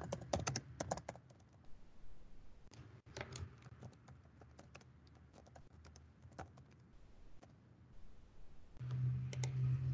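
Computer keyboard typing: quick runs of key clicks, then scattered single keystrokes. A low steady hum comes in near the end.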